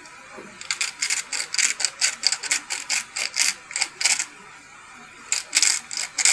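Hand-twisted burr spice mills grinding: a quick run of gritty ratcheting clicks, about five a second, then a short pause and a second, shorter run near the end.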